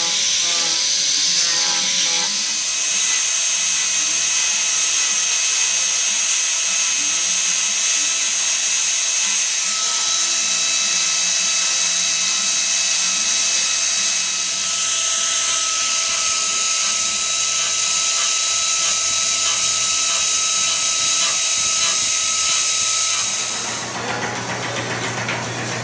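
Hand-held electric angle grinders fitted with wood-carving and sanding attachments running against wood, a steady high-pitched whine over a hiss of abrading. Near the end it drops to a lower, rougher sound with a low hum.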